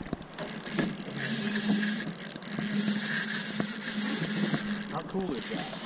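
Fishing reel being cranked in, its gears whirring steadily with a few brief pauses, while reeling in a hooked steelhead.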